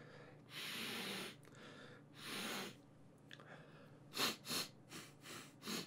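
A man breathing forcefully through his nose to clear his sense of smell: two long breaths, then five short, sharp snorts in quick succession near the end.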